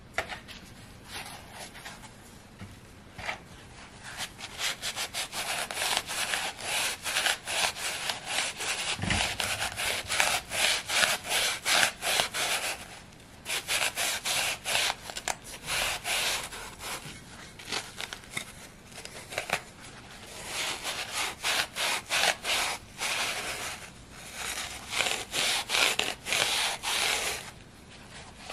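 Scouring sponge scrubbing wet metal binocular parts in quick back-and-forth strokes. It comes in several bursts broken by short pauses.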